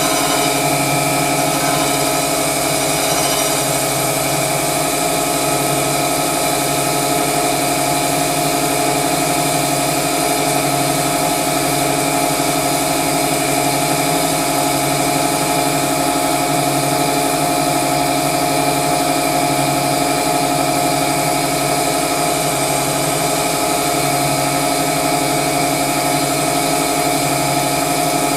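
Winona Van Norman CG250 crankshaft grinder running steadily, its grinding wheel working a crankshaft: a constant machine hum with several steady tones.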